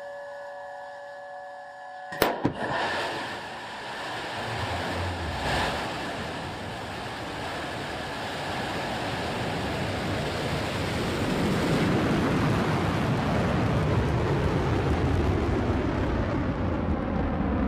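New Shepard rocket's BE-3 engine lighting and lifting off. A steady tone is cut by a sharp crack about two seconds in, then a rushing noise with a deep rumble builds over about ten seconds and holds loud.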